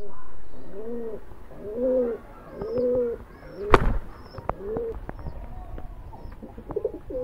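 Male domestic pigeon's courtship cooing: a string of low, arching coos about once a second. A single sharp knock sounds about halfway through, and faint high chirps run alongside.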